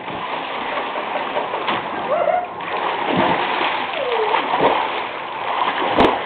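Pool water splashing and churning as a person plunges in and swims with thrashing strokes, the splashing steady throughout.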